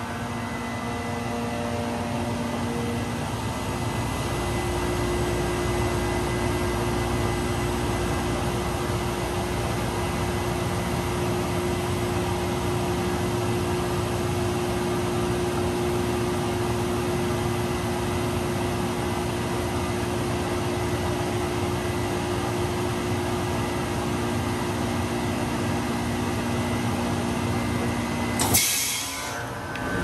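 1983 Whirlpool heat pump outdoor unit running, its compressor and fan making a steady hum with a steady low tone. Near the end there is one brief, loud rush of noise.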